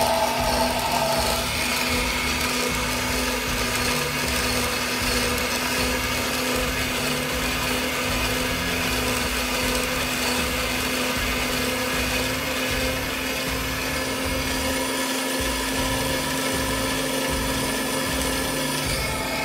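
Amzchef vertical slow juicer running steadily: a constant motor hum with the grinding of whole apples being crushed by the auger.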